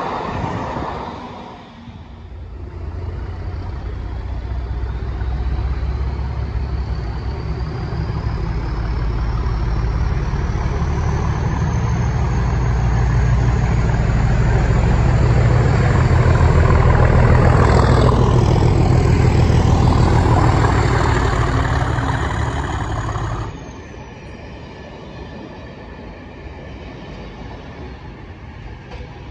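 A diesel train rolling past, then an English Electric Class 37 diesel locomotive hauling a test train: a deep, steady engine note builds with a turbocharger whistle that rises in pitch, peaks about two-thirds of the way through and falls away. The sound drops sharply as the locomotive passes, leaving the rumble of the coaches rolling by.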